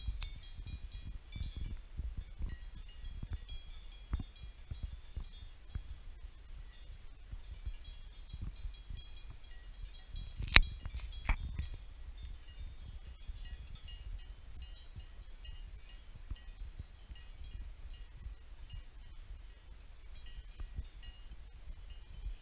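Distant cowbells clinking irregularly across the pasture over a low, gusting wind rumble on the microphone. A sharp click comes about ten seconds in and a smaller one just after.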